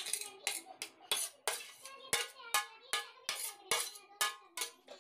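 Metal spoon repeatedly clinking and scraping against a metal pan while stirring grated raw mango and sugar, about two or three strikes a second.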